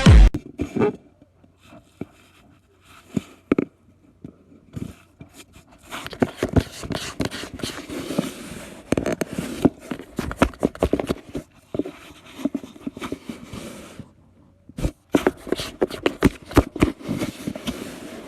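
Irregular knocks, taps and scraping, scattered unevenly with a few louder knocks, and no music or speech.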